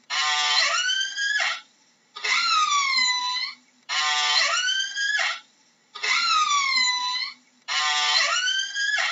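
Orca (killer whale) calls: five calls, each about a second and a half long, coming about every two seconds. They alternate between a call that dips and then rises in pitch and a buzzier call that climbs upward.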